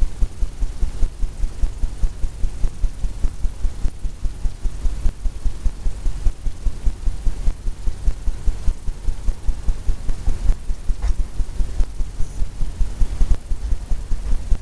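Steady low rumble that throbs several times a second, with a faint hiss above it: constant background room noise.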